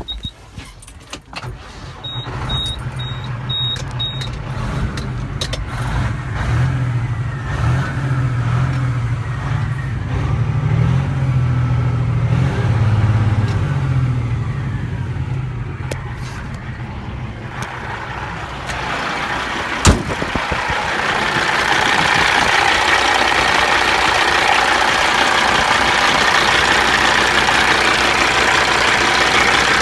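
Cat 3406 inline-six diesel in a 2007 Western Star glider truck being started and run. A few clicks and a short series of beeps come as the key goes on, then the engine runs with a low, wavering drone. About twenty seconds in there is a single sharp knock, after which the sound turns louder, steadier and noisier.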